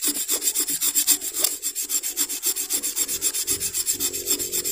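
Knife blade scraping a piece of bamboo in quick, even strokes, about eight a second. The bamboo is being shaved thinner, to the point where it turns soft and can sound like a muntjac fawn's call.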